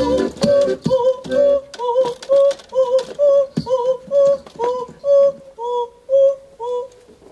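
A woman singing a run of short, separate staccato notes at a steady pace of about two a second, with lower plucked notes under the first second or so. The notes stop about seven seconds in.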